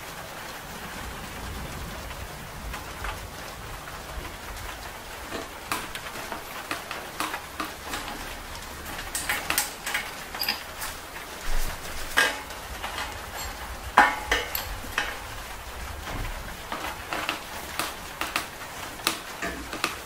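Metal tools and bicycle headset parts clicking and clinking as a headset is fitted into a bike frame's head tube: a run of light, sharp metallic taps, loudest about two thirds of the way in, over a soft hiss.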